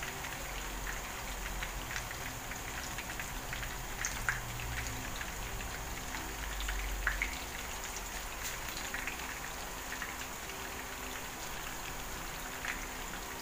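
Breaded fish fillet shallow-frying in hot oil in a pan: steady sizzling with scattered small pops and crackles.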